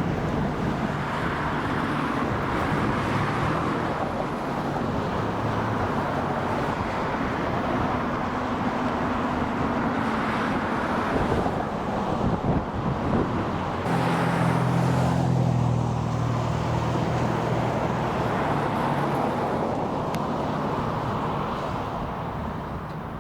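Motor traffic running steadily, with an engine's low hum loudest about fourteen to seventeen seconds in.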